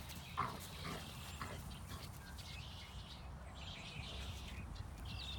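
Outdoor ambience: a steady low rumble of wind on the microphone, with faint bird chirps. Two brief dog sounds from the Great Danes come within the first second and a half.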